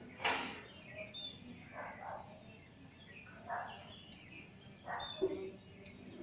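Birds chirping: short calls about every second and a half, with a few thin high chirps between them.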